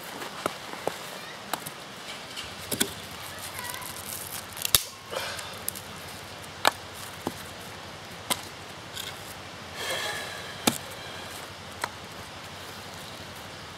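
Ultra Natura fiberglass-handled hand hatchet splitting small kindling on a stump chopping block: a string of about ten sharp, separate wooden chops and knocks, the loudest about five seconds in, with a short scrape or rustle of wood near the end.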